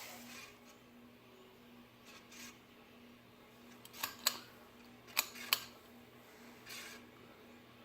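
Old Windmere ceiling fan's motor humming steadily, a fan whose bearings are described as totally shot. Two pairs of sharp clicks come about four and five seconds in.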